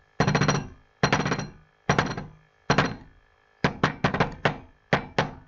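A rhythmic run of about a dozen thumps and knocks drummed out while waiting. Four are evenly spaced about a second apart, then a quick run of four or five, then two more.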